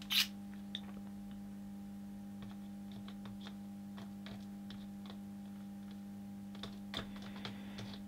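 Steady electrical hum from a high-voltage insulation flash tester running at 3750 volts, with scattered light clicks as its probe is tapped and moved over the plastic body of a lever wire connector. No sparking or trip: the connector's insulation shows no leakage.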